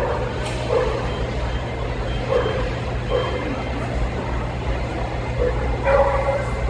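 Steady low hum of a large indoor hall with a murmur of voices, broken by a few short dog barks from dogs around the ring, the strongest about six seconds in.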